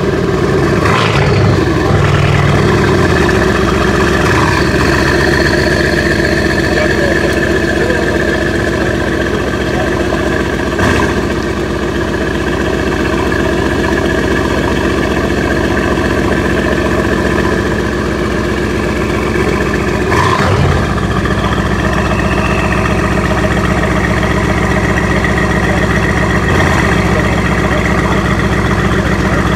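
Brabus 800 Mercedes-AMG C63 S's 4.0-litre twin-turbo V8 idling steadily through its exhaust, just after start-up.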